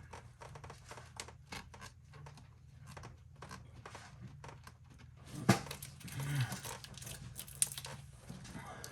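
Small clicks and rubbing of hands and parts being worked in an engine bay, with one sharp click about five and a half seconds in and a short low grunt just after it, over a faint steady low hum.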